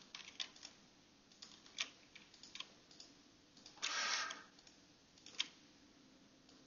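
Scattered soft clicks of a computer mouse and keyboard as faces are selected in the modelling program, with one brief louder rush of noise about four seconds in.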